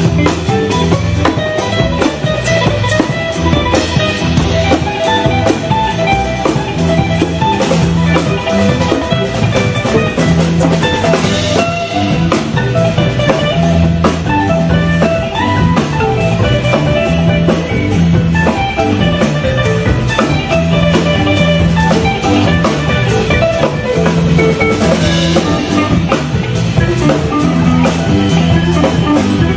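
Recorded music with a steady drum beat, a repeating bass line and a bright plucked melody on top.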